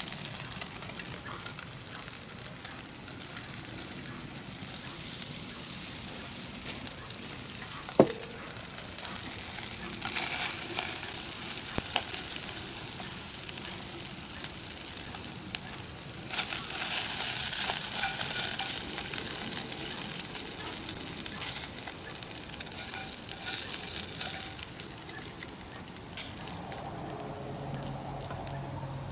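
Food sizzling steadily over a campfire, swelling louder twice, with a few sharp cracks, one clear one about eight seconds in.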